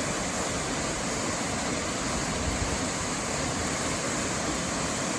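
Ponytail Falls, a waterfall pouring off a rock overhang into a pool: a steady, even rush of falling water.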